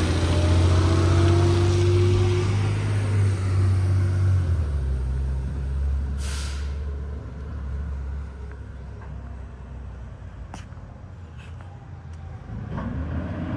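Diesel refuse truck's engine running and fading as it pulls away, with a short air-brake hiss about six seconds in; the engine grows louder again near the end.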